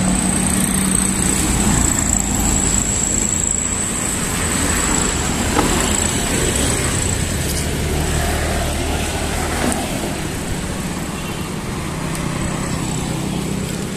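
Street traffic: vehicle engines running and passing in a steady roar, with a thin high whine through the first half and a small click about halfway.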